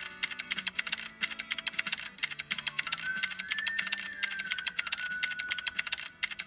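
Rapid computer-keyboard typing clicks, several a second, keeping time with text being typed onto the screen, over soft background music.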